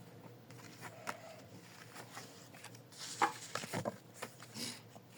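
Pokémon cards being handled: a few faint light clicks and soft rustles, clustered about three seconds in.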